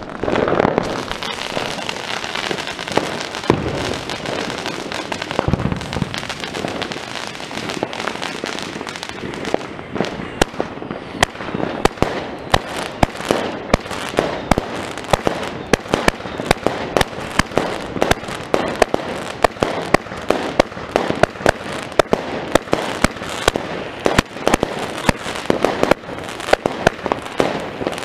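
A consumer fireworks cake (multi-shot battery) firing: a rapid, continuous run of shots, bangs and crackling, getting much denser about ten seconds in.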